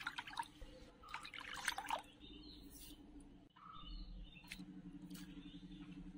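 Soy sauce poured from a small cup into a glass bowl, with faint liquid splashing over the first two seconds. A few light clicks follow as dry ingredients are tipped into the bowl.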